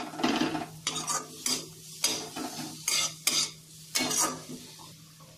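Metal ladle scraping and stirring frying onion, tomato and spices around a metal kadhai: about ten quick, irregular scrapes over a light sizzle, thinning out in the last second.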